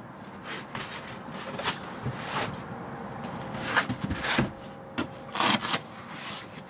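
Upholstered dinette cushions being moved and laid onto the lowered dinette table: a run of fabric rubbing and scraping with a few soft knocks, loudest about four and again five and a half seconds in.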